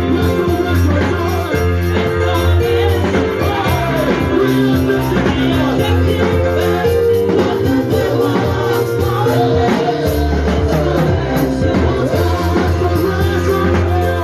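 Praise and worship music with sustained bass and chords, and voices singing along.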